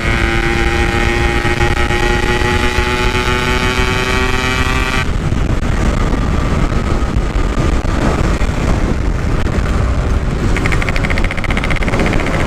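Yamaha RX-King's single-cylinder two-stroke engine running through a stock-style Packing Power muffler while riding, with wind buffeting the microphone. The steady engine note sags slightly, then changes abruptly about five seconds in to a rougher, noisier sound as the throttle is eased.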